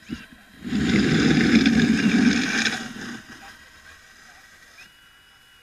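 Loose gravel and dirt crunching and scraping for about two seconds under a radio-controlled Liebherr L576 wheel loader as its bucket works the ground and it drives off.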